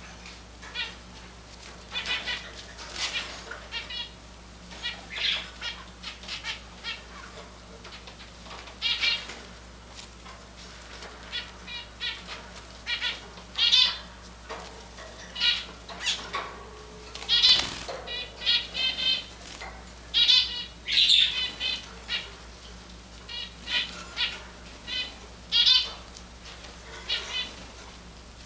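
Java sparrows chirping, giving short calls every second or so, some run together into a rapid clicking trill. One sharp knock comes about seventeen seconds in.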